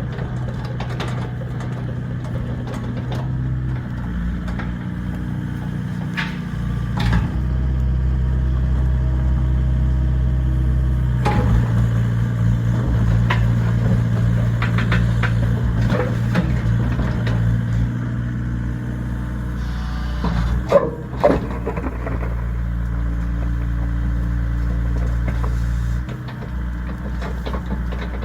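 Excavator's diesel engine running steadily, its load and pitch shifting a few times, with scattered knocks and scraping from the machine working. A short burst of sharper clatter comes about two-thirds of the way through.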